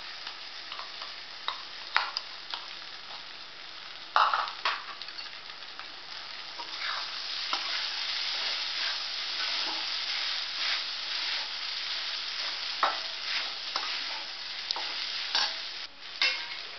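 Soaked sabudana (tapioca pearls) sizzling in hot oil in a metal kadhai while being stirred and tossed with a steel spatula, the spatula scraping and knocking against the pan now and then. The sizzle grows louder about six seconds in.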